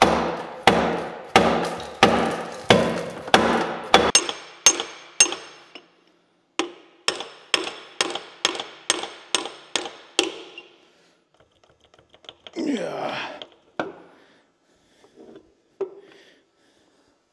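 Repeated hammer blows on the stuck accessory drive of a Caterpillar D4600 engine, about three a second, struck to work the seized drive loose. There is a short pause between two runs of blows; the hammering stops about ten seconds in, and a few quieter handling noises follow.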